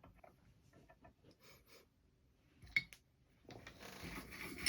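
Handling noises from small tools and parts: light clicks, one sharp click a little under three seconds in, then a rustling scrape from about three and a half seconds that gets louder toward the end.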